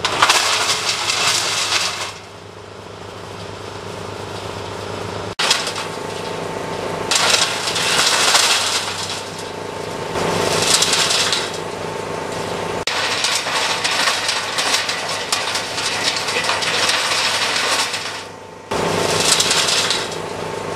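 Truck-mounted wood chipper running, its engine droning steadily, with several loud grinding surges as branches go through the chipper, the longest lasting about five seconds.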